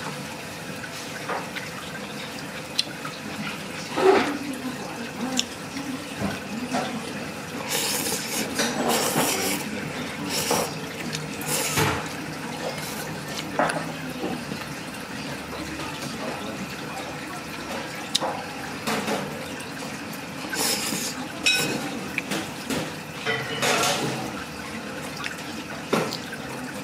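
Ramen being eaten: noodles slurped from a bowl of broth in several short, irregular bursts, with chopsticks stirring the soup between them.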